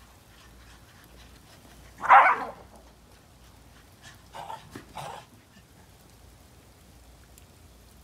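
Shiba Inu barking: one loud bark about two seconds in, then two shorter, quieter barks around four and a half and five seconds.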